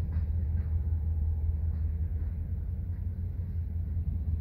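A steady low engine rumble with no change in pitch or loudness.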